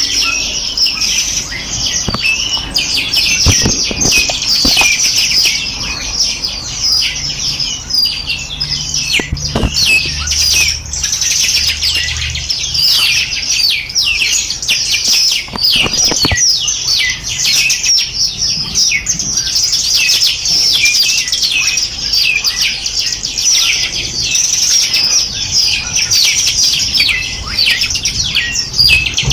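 A flock of small songbirds chirping and twittering all at once: a dense, unbroken chorus of quick high notes.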